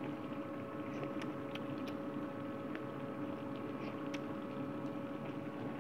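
A steady machine hum with a faint hiss. A few light clicks come between about one and four seconds in, as a spoon moves in a pot of simmering chicken masala.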